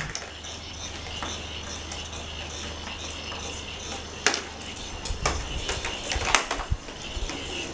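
Self-rolling plastic ball cat toy, driven by a small battery motor turning a weight inside it, clicking and knocking as it rolls over a tile floor. A few sharp clicks come about four to six and a half seconds in.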